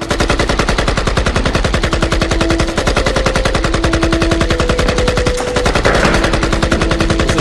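Rapid, unbroken automatic gunfire, many shots a second, over sustained low notes of the film's score.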